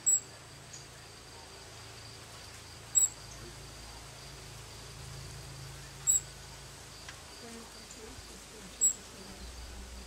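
A ruby-throated hummingbird fledgling gives four short, sharp, high chirps, about three seconds apart. They are the begging calls of a hungry young bird left waiting for its mother.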